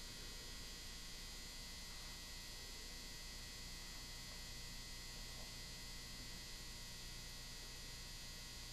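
Faint, steady electrical mains hum over quiet room tone.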